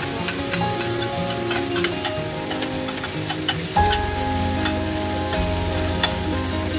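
Chicken pieces and minced garlic sizzling in a stainless steel frying pan, stirred with a metal spatula that clicks and scrapes against the pan. Background music plays over it, and its bass comes in about four seconds in.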